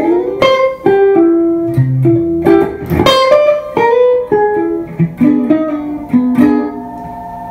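A 1937 Dobro-made Broman Spanish Electric guitar played plugged in through an amp: a single-note lick of picked notes, a few a second, ending on a held note that rings out.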